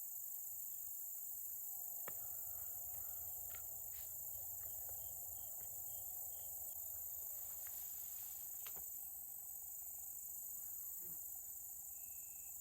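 Steady high-pitched chorus of insects, with a few faint clicks and small chirps.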